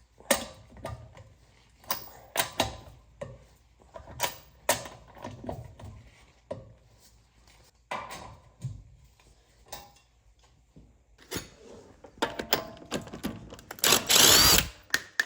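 Hand work with tools and parts: a scattered series of sharp clicks and knocks, then a loud rushing burst of noise lasting about a second near the end.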